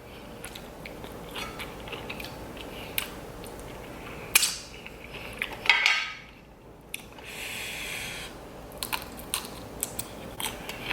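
Close-up eating sounds: biting and chewing with many scattered sharp clicks and taps, and a few louder crunches about halfway through.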